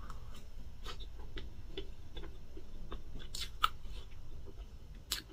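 Mouth sounds of eating soft chocolate cake from a spoon: irregular small wet smacks and clicks while chewing, with a few louder ones about three and a half seconds in and near the end.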